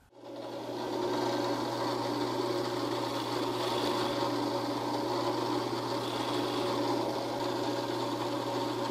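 Benchtop drill press motor spinning up and then running steadily, while a countersink bit cuts small chamfers around holes in hardwood.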